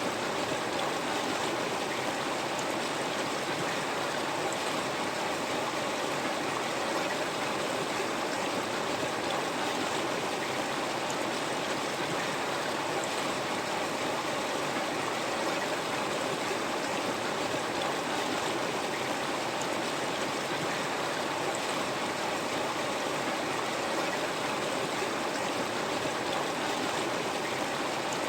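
River water flowing steadily over rocks: an even, unbroken rushing with a light babble.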